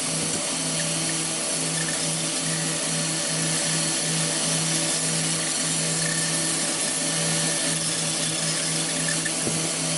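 Power tool motor in a homemade shredder box running steadily under load, its spinning blades grinding against a toy apple that tumbles in the box. A constant hum runs under the grinding, wavering slightly as the load changes.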